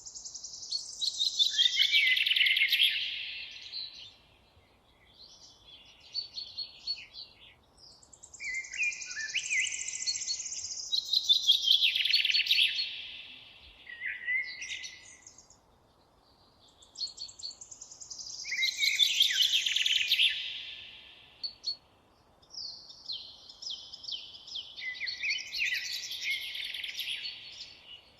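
A songbird singing: four loud song phrases, each a few seconds long and made of a fast run of notes falling in pitch, repeated every six to eight seconds, with a few softer short notes between them.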